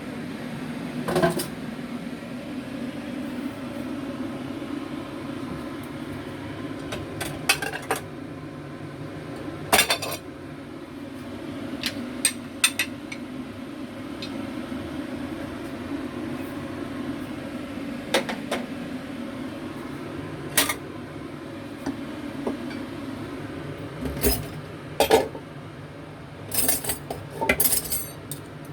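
Kitchen utensils and dishes clinking and knocking now and then over a steady low hum, with the clatter coming more often near the end.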